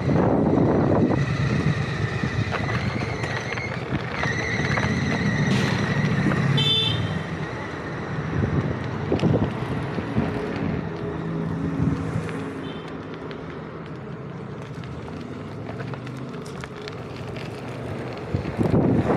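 City road traffic going by, with a long high-pitched tone through the first few seconds and a couple of brief high chirps.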